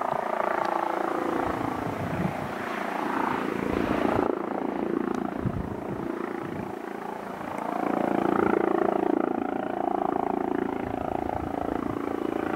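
Eurocopter EC135 twin-turbine helicopter in flight, its main rotor, Fenestron tail rotor and engines giving a steady sound that swells louder about eight seconds in as it draws closer.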